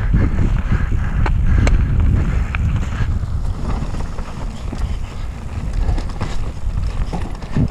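Wind buffeting the microphone of a mountain bike descending a rough trail at speed, with scattered sharp knocks and rattles from the bike over roots and rocks.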